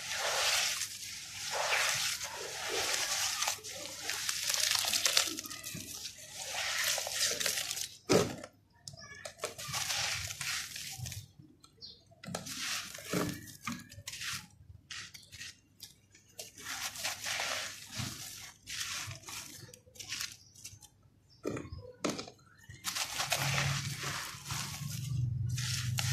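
Hands squeezing and crumbling wet red dirt in a basin of water: sloshing, squelching and gritty crumbling in irregular handfuls, with a few sharp knocks as clumps drop in. A low steady hum joins near the end.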